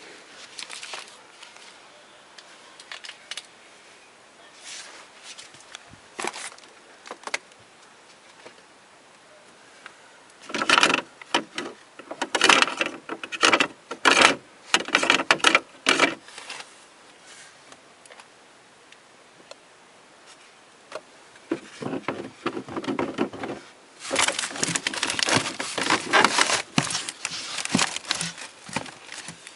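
A 1970s Admiral refrigerator hissing and crackling in irregular bursts, with faint scattered crackles and two louder spells, one about a third of the way in and one near the end.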